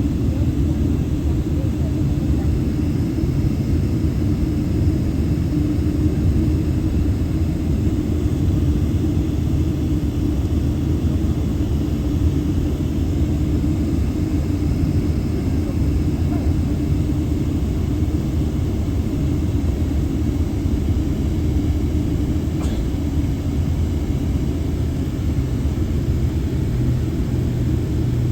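Steady low rumble of a Boeing 777-300's jet engines and airframe, heard from inside the passenger cabin, with a steady hum in it.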